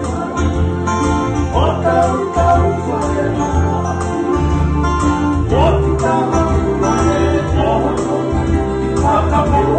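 A small group playing and singing a Tongan song live: men's voices over strummed ukulele and acoustic guitars, with an electronic keyboard.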